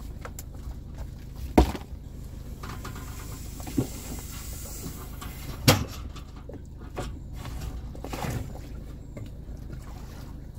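Clanks and knocks of a trailer strap being unhooked and a loaded fishing kayak being shoved off its trailer into the water, with two sharp knocks about a second and a half in and about five and a half seconds in, and a scraping rush near the end as the hull slides off. A steady low hum runs underneath.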